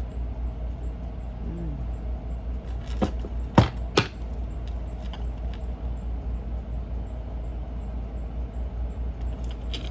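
Steady low background hum, with a few sharp taps or clicks about three to four seconds in and another near the end.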